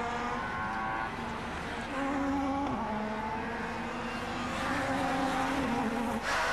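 Class 1 touring car racing engine running at high revs on track, its pitch holding fairly steady with small shifts. The sound changes abruptly near the end.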